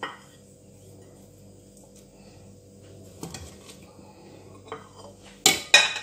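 Plates and a metal cooking pot being handled on a granite counter: a few light knocks, then two sharp clanks close together near the end.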